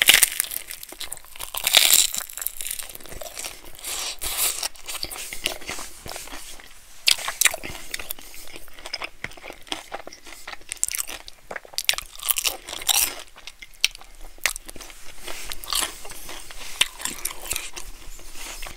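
A person biting into and chewing crunchy fried food close to the microphone. The loudest crunches come right at the bite and again about two seconds in, then irregular crunching chews carry on throughout.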